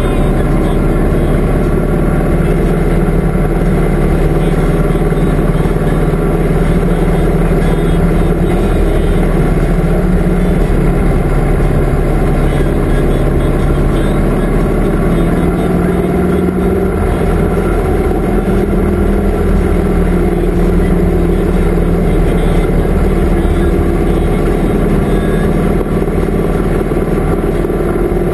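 Touring motorcycle's engine running steadily at cruising speed, its engine note shifting slightly about halfway through.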